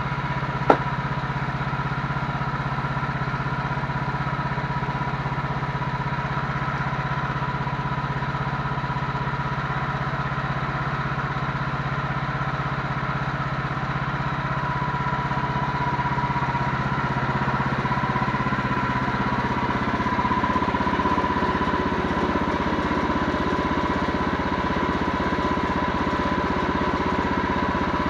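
An engine running steadily, with a high steady whine over its hum that grows slightly louder in the second half. There is one sharp click about a second in.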